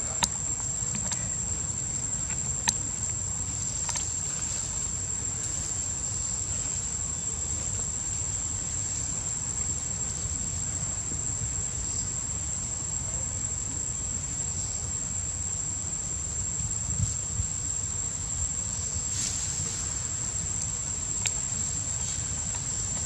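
Insects droning in one steady, unbroken high-pitched whine, over a low rumble, with a few sharp clicks scattered through.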